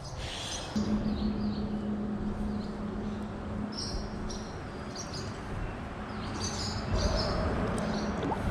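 Small birds chirping in short high notes, again and again, over a steady low hum that starts about a second in and a constant outdoor background noise.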